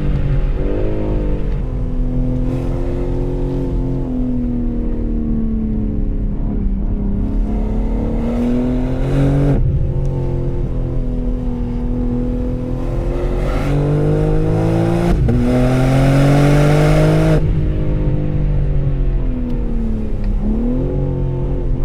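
BMW M3 Touring's twin-turbo straight-six on its stock exhaust, driven hard: the revs climb under acceleration and fall sharply at several gear changes, with lighter stretches between.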